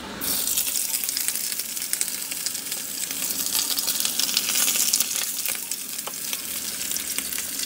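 Yellowtail (hamachi) fish collar pieces sizzling and crackling in hot oil in a frying pan; the sizzle starts suddenly as the first piece goes in, and a second piece is laid in partway through.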